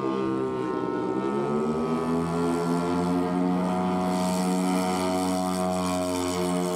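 Twin propeller engines of a 177-inch-span radio-controlled C-119 Flying Boxcar model throttling up for the takeoff roll. Their pitch rises over the first two seconds, then holds steady.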